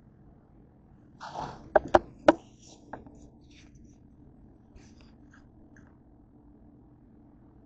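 A short scrape, then three sharp clicks in quick succession and a fainter fourth click about half a second later, like objects being handled and knocked together.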